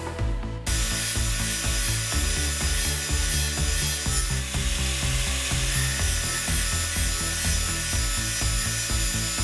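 Angle grinder grinding a flat driving surface onto the 6.35 mm steel shaft end of a stepper motor: a steady harsh grinding hiss that starts about half a second in.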